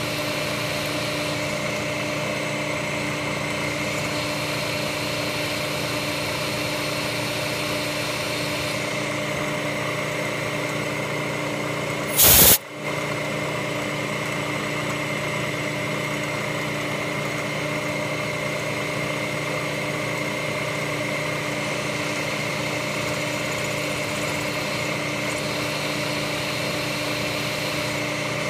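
Milling machine running steadily, a hum with a high whine, while a quarter-inch end mill cuts out a broken 8 mm bolt. About twelve seconds in, a short loud burst cuts across it.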